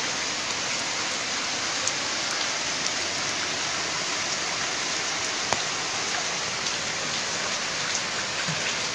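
Heavy rain falling steadily, an even hiss of rain on water and ground, with a few sharp ticks of drops landing close by.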